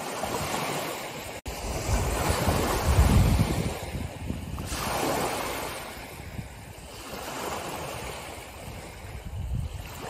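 Small sea waves breaking and washing up a stony shore, the rush swelling and fading. The loudest surge comes about three seconds in and another near five seconds. There is a momentary dropout about a second and a half in.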